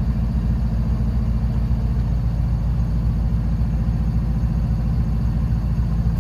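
Engine running at a steady idle: a loud, low, even hum that does not change.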